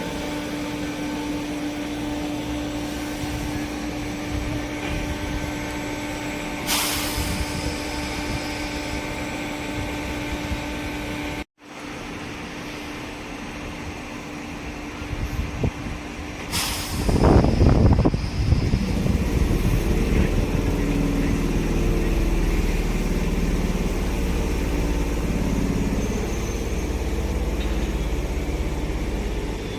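Electric commuter train at a station platform: a steady hum, then after a break a louder low rumble of a train running, with short air-brake hisses about 7 and 17 seconds in.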